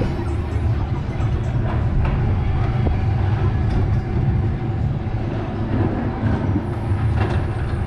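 Car of an elevated pedal-rail ride rolling along its steel track: a steady low rumble with a faint click now and then.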